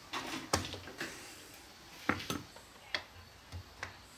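Irregular sharp clicks and light knocks, about eight in all, as parts around the air filter and carburettor of an old Pioneer P41 chainsaw are pulled off and handled by hand.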